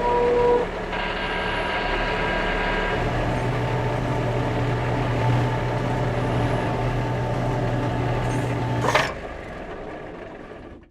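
A heavy truck engine runs steadily, with a low hum joining about three seconds in. A sharp impact comes about nine seconds in, and the sound then dies away.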